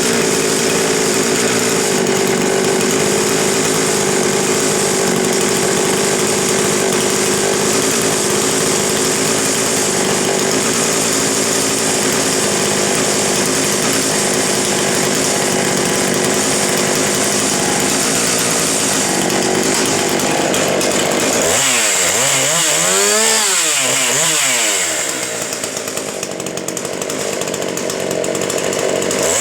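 Husqvarna 359 two-stroke chainsaw with an upgraded dual-port muffler, running steadily at high speed for about twenty seconds. It then revs up and down as the throttle is worked, drops lower for a few seconds, and revs up again near the end.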